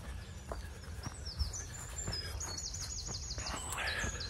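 Small songbirds singing: high chirps, with a fast run of repeated high notes about halfway through, over a steady low rumble.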